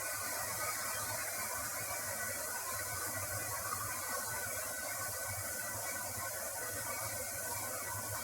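Steady rushing water from a waterfall or stream, an even unbroken noise.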